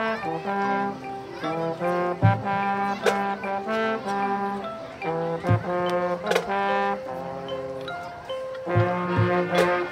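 Marching band brass playing a melody in full chords, with occasional sharp percussion hits.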